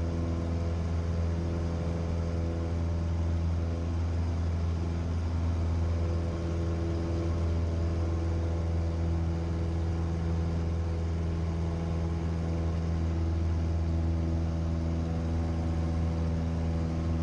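Cessna 172's single piston engine and propeller droning steadily at one unchanging pitch during the climb-out after takeoff.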